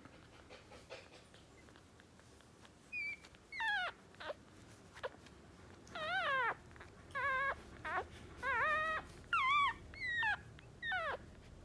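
Two-day-old West Highland White Terrier puppies whimpering: a run of about ten short, high squeaky cries, most sliding down in pitch, starting about three seconds in.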